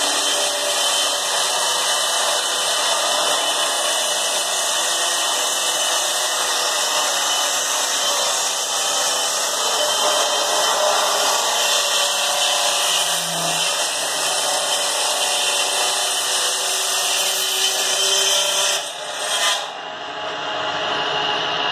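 A woodworking power machine running steadily with a loud, even whir. It dips briefly about three-quarters of the way through and then runs on with a duller sound.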